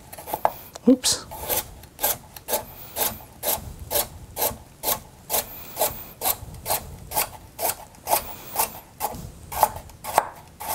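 Chef's knife slicing a carrot into discs, each cut ending in a knock on the wooden cutting board, in a steady rhythm of about two cuts a second.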